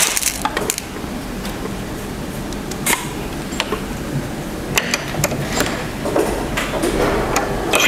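Scattered small clicks and taps from handling and aiming a PCP air rifle over a steady background hum, with a sharper click near the end.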